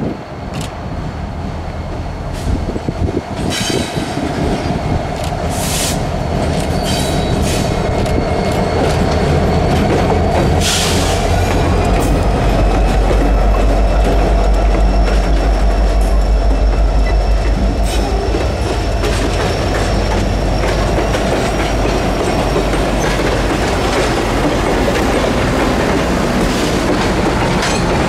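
Norfolk Southern track geometry train passing close by: a deep diesel locomotive rumble builds to a peak about halfway through and then holds under the steady running of wheels on the rails. Several brief sharp high screeches come in the first half, and a thin high wheel squeal runs through the middle.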